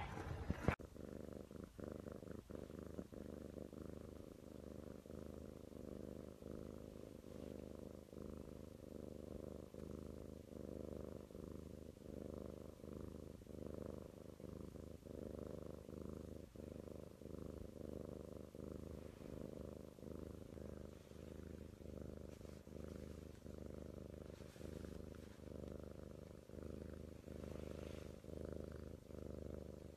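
Tabby cat purring steadily, the purr swelling and fading in a slow, regular rhythm with its breathing. A brief knock right at the start.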